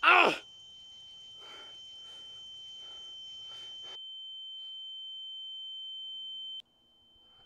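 A steady, high-pitched ringing tone, a tinnitus-like sound effect, swelling slowly louder and cutting off abruptly near the end before returning faintly. It opens with a short, loud cry-like sound that falls sharply in pitch.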